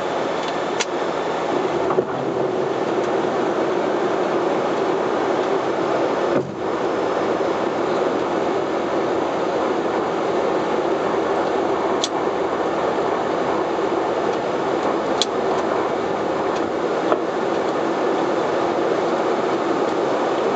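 Steady cockpit noise of a Bombardier Dash 8 Q400 in flight on approach: the drone of its Pratt & Whitney PW150A turboprop engines and propellers mixed with rushing air. A few faint clicks sound over it.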